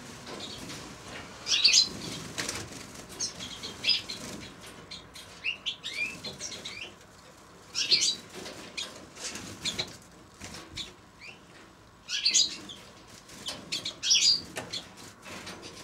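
Small finches chirping in short high bursts, about six bouts, the loudest near the start and in the second half, with wings fluttering and light clicks in between.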